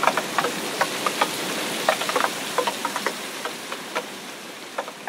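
Rain falling onto a shallow puddle over grass: a steady hiss with many separate drops splashing distinctly into the water, growing fainter in the last couple of seconds.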